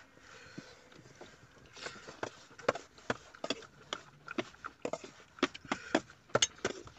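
A person chewing food close to the microphone: from about two seconds in, a run of short, sharp, wet clicks and smacks comes several times a second at an uneven pace.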